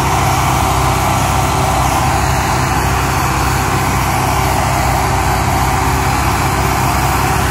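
Tractor's diesel engine running steadily at an even speed while pulling a loaded sugar cane trailer.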